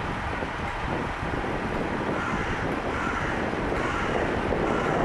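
Class 143 Pacer and Class 150 diesel multiple units moving slowly past: underfloor diesel engines running steadily with the rumble of the wheels on the rails.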